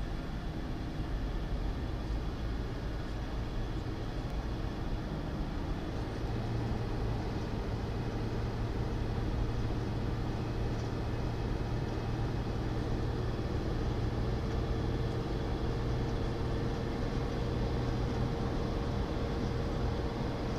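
Steady road and engine noise of a car driving, heard inside the cabin. A low drone grows a little stronger about six seconds in and then holds.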